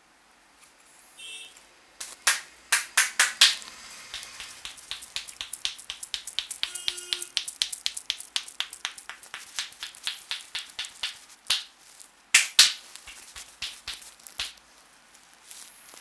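Barber's hands slapping and tapping on the head in an Indian head massage. A few sharp slaps come about two seconds in, then a fast patter of lighter taps runs for several seconds, several a second, and a few loud slaps land near the end.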